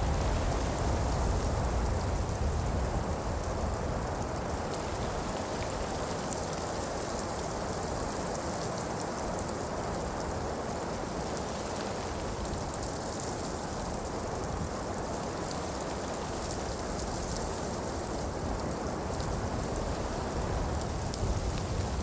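Heavy falling-snow ambience: a dense, steady hiss with fine pattering ticks, over a low rumble that eases after the first few seconds.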